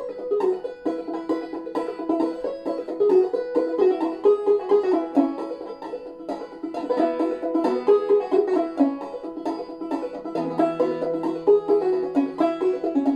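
Five-string banjo played clawhammer style: a steady, continuous run of picked melody notes and brushed strums. It is in double C tuning (gCGCD), capoed at the fourth fret to play in E major.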